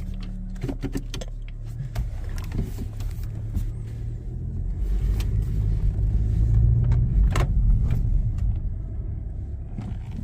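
A Honda Civic Sport hatchback with the 1.5-litre turbo engine running as the car is driven: a steady low engine and road rumble that grows louder about four seconds in and eases off again near the end, with a few light clicks.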